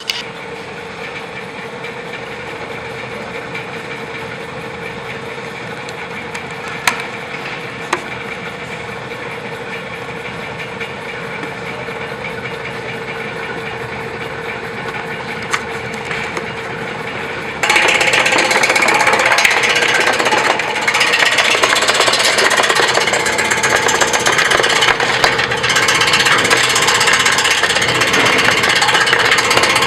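Electric lemongrass and herb slicing machine running with a steady motor hum and a few single clicks. About 18 seconds in, a much louder, dense chopping rattle starts suddenly as the blades begin cutting, and it carries on.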